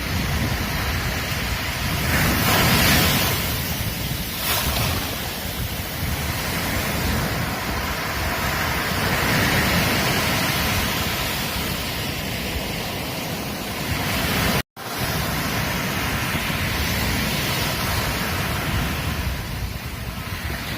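Ocean surf breaking and washing up a beach, with louder swells about two seconds in and again around nine seconds. About fifteen seconds in, the sound drops out to silence for a split second.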